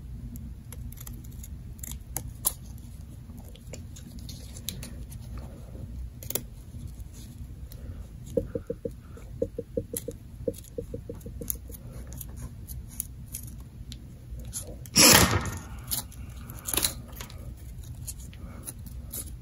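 Small scissors snipping through folded printer paper, in scattered short clicks with a quick run of small snips about eight to eleven seconds in. A louder burst of paper rustling and handling about fifteen seconds in is the loudest sound.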